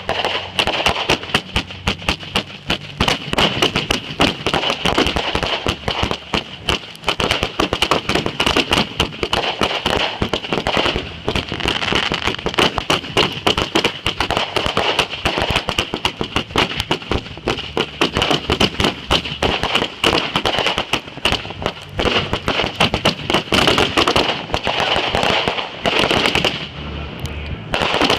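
A long run of firecrackers going off in rapid, dense bangs with no break, stopping abruptly about a second before the end.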